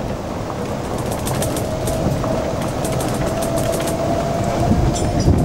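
Electric golf cart rolling along a paved path: a steady rumble of tyres and passing air, with a thin steady whine and light rattling clicks.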